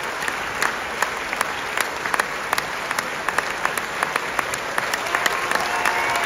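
An opera audience applauding a curtain call: dense, steady clapping from many hands, with a few voices calling out above it near the end.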